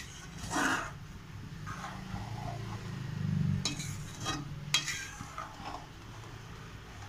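A slotted metal spoon stirring vermicelli payasam in an aluminium pan, with about six short scrapes and clinks against the pan; the sharpest comes about five seconds in. A steady low hum runs underneath.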